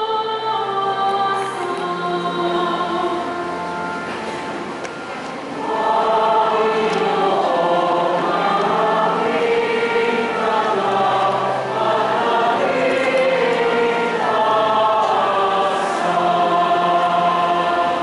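A woman's solo voice singing held notes, then a church choir comes in louder about five and a half seconds in, singing over sustained low accompaniment notes.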